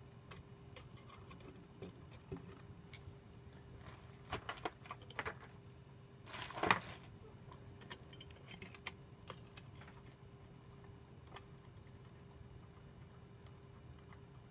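Small clicks and taps of hand work on computer parts and tools, with a cluster of clicks about four to five seconds in and a short scrape about six and a half seconds in, over a faint steady hum.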